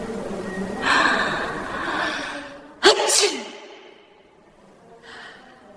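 An AI-generated (Sora 2) human sneeze. A drawn-out gasping intake of breath builds for over a second, then one sharp sneeze comes about three seconds in, its voice falling away. A short faint breath follows near the end.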